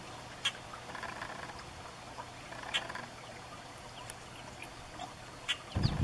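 Faint outdoor ambience with a pulsing trill that recurs every couple of seconds. Three short sharp calls or clicks come about two and a half seconds apart, and a few low thumps sound just before the end.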